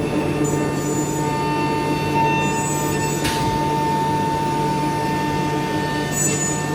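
Woodworking machinery in a cabinet workshop running steadily, with a high whine and a low hum. There is a short hiss about three seconds in.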